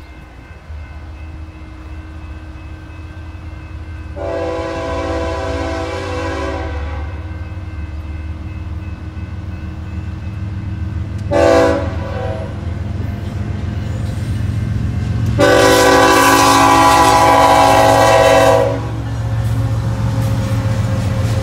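BNSF ES44DC diesel locomotive's five-chime Nathan K5HL air horn sounding a long blast, a short one and a longer final blast, over the low rumble of the locomotive growing louder as it approaches.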